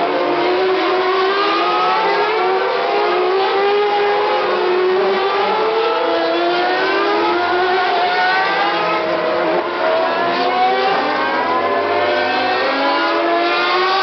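Several 2013 Formula One cars with 2.4-litre V8 engines running at high revs as they accelerate out of a corner one after another. The overlapping engine notes rise in pitch again and again.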